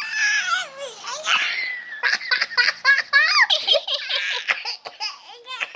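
High-pitched laughter in fits: one long falling squeal at the start, then quick rapid giggling pulses from about two seconds in.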